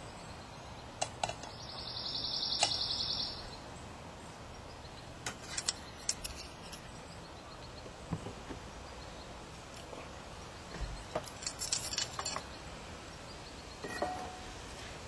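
Scattered light clinks and taps of cooking utensils and dishes. About two seconds in comes a short, high, rapidly pulsed trill lasting about a second and a half, the loudest sound here.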